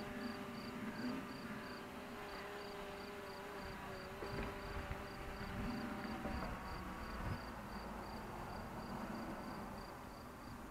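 A short, high chirp repeating evenly about three times a second, over a faint steady hum of pitched tones that breaks off about six seconds in.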